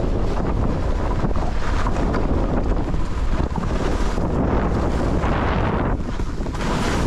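Loud, steady wind buffeting the camera microphone of a skier moving fast down a slope.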